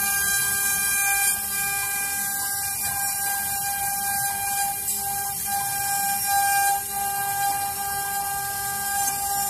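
CNC wood router carving a relief panel: a steady, high-speed spindle whine made of several even tones, over a constant hiss of the bit cutting.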